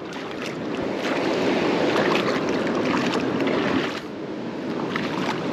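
Water splashing and sloshing, louder for a few seconds and then easing off about four seconds in, with small clicks and knocks through it.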